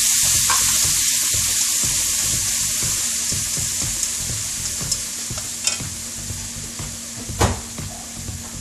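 Minced tomato sizzling in hot oil in a nonstick wok as it is stir-fried with wooden chopsticks. The sizzle slowly dies down, and the chopsticks click against the pan a few times in the second half.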